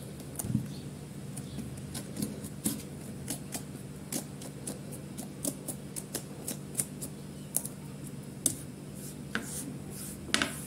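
Small kitchen knife shaving the skin off an eggplant's green stem and calyx: a string of short, crisp scraping cuts, about two or three a second, uneven in spacing.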